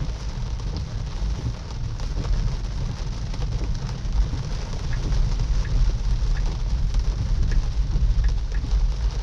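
Moderate rain falling on a moving car, with scattered drop ticks over a steady low rumble of tyres on the wet road. It grows slightly louder after about four seconds.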